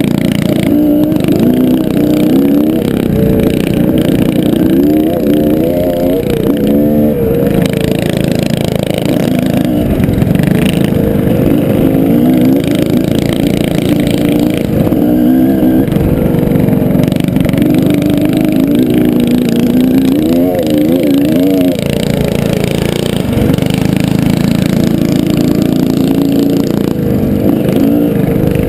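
Mini bike engine running hard during a race, heard from the rider's helmet camera, its pitch climbing and dropping again and again as the throttle is opened and closed through corners and straights.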